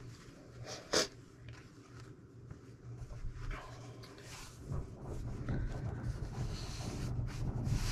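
Fabric being handled and slid about on an ironing surface, a rustling, scraping sound that grows louder from around the middle, with one sharp click about a second in, over a steady low hum.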